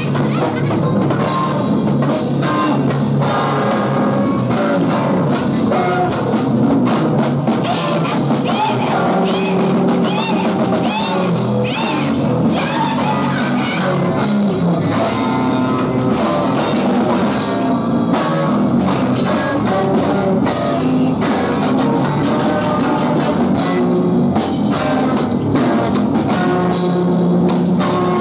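Live rock band playing loudly: drum kit and electric guitars, with a woman singing into a microphone at times.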